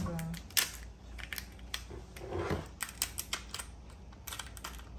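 Kitchen shears snipping through the hard shell of a raw lobster tail, cutting it open along the underside: a run of irregular crisp clicks and crunches.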